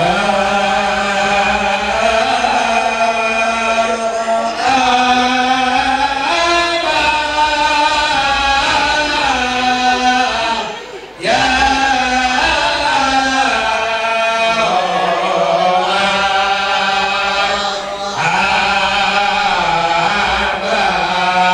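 A group of voices chanting Arabic devotional verses (sholawat) together in the marhaban style, in long, drawn-out melodic phrases that step from note to note. The chant breaks briefly for breath about eleven seconds in.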